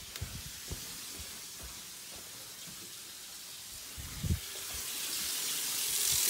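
Shower water running: a steady hiss that grows louder over the last couple of seconds, with a dull knock about four seconds in.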